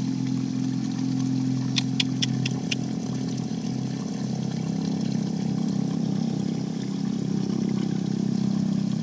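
Steady low motor hum with water running and trickling. About two seconds in comes a quick run of five sharp clicks.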